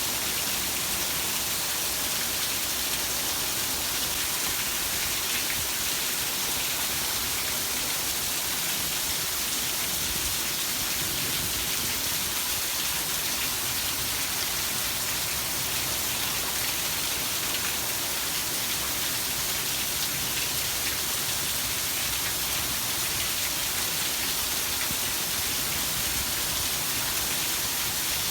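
Heavy rain falling steadily, a constant even hiss of raindrops.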